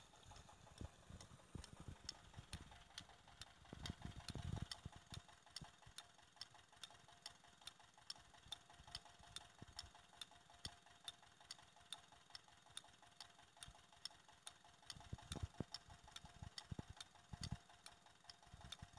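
Faint, steady running of a 25 hp Petter stationary diesel engine driving a belt-driven tube-well pump, heard as an even ticking beat of about two to three knocks a second. A few dull low thumps stand out about four seconds in and again near the end.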